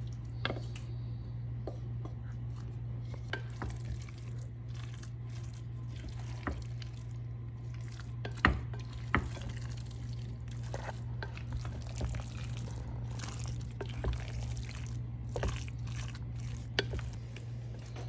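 Spoon stirring a thick, wet chicken pot pie filling of chicken, cream soups, sour cream, mixed vegetables and potatoes in a bowl, with scattered clicks of the spoon against the bowl. A steady low hum sits underneath.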